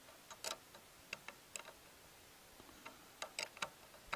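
Light metallic clicks of a small wrench working 10 mm bolts loose on a small engine's carburetor intake, scattered and irregular, with a quick run of three or four clicks about three seconds in.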